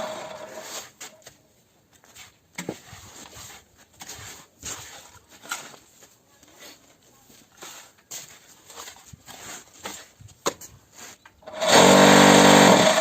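Cinder-block machine's vibrator motor running with a loud, steady hum, dying away in the first second or so. Scattered knocks and scrapes from working the machine follow. About 11.5 s in the vibrator starts up again suddenly.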